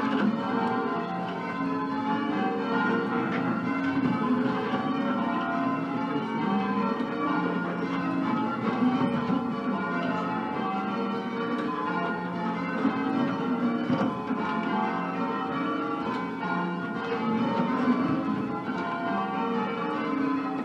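A ring of ten church bells in F, with a 13 cwt tenor, being rung in change ringing: a continuous, even stream of overlapping bell strokes. The bells are a mix of 1908 Mears and Stainbank, 1948 Gillett and Johnston and 2003 Whitechapel castings.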